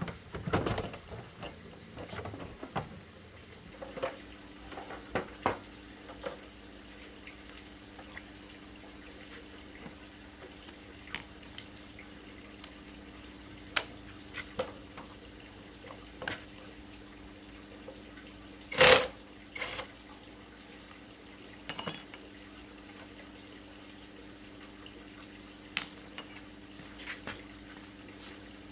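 Scattered clinks and knocks of metal bolts, sockets and tools being handled and set down on concrete while a small motorcycle is taken apart, with one much louder sharp clatter about two-thirds of the way through. A faint steady hum lies underneath.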